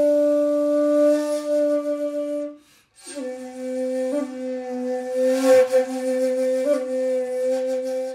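Intro music: a flute-like wind instrument playing two long held low notes. The first ends about two and a half seconds in, and the second starts just after with a couple of small pitch flicks.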